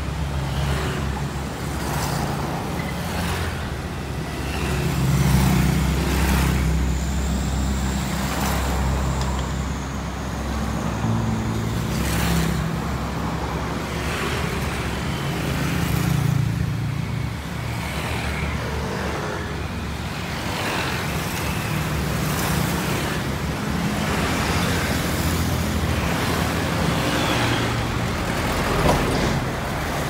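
Steady road traffic of motor scooters and cars passing close by one after another, their engines and tyres running continuously with repeated swells as each goes past.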